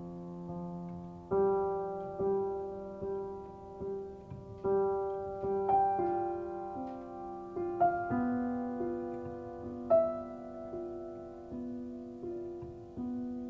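Piano playing a slow, gentle passage of chords and single notes, struck about once a second and each left to ring and fade.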